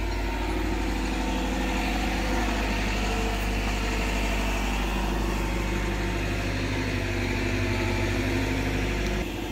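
An engine idling steadily with an even low hum, which drops away suddenly near the end.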